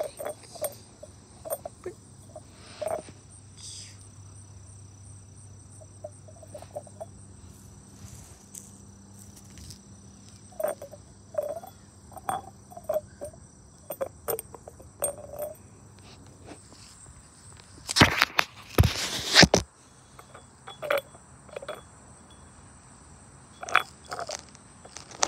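Insects trilling steadily at a high pitch, with scattered soft taps and rustles. About three-quarters of the way through, a loud rustling lasts about a second and a half.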